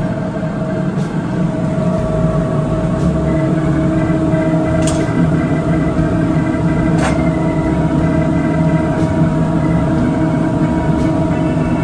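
Steady machine hum of a commercial kitchen with the gas range's burners lit, holding a few unchanging tones, with faint clicks about five and seven seconds in.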